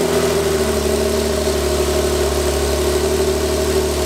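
A 2017 Porsche 911 Carrera S's twin-turbocharged 3.0-litre flat-six, breathing through its sport exhaust, idling just after start-up. The revs ease down a little in the first moment, then hold a steady idle.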